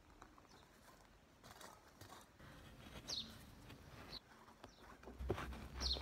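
A hand tool scraping and digging into garden soil around garlic plants, with leaves rustling. The strokes grow louder near the end. A bird gives a short falling chirp a few times.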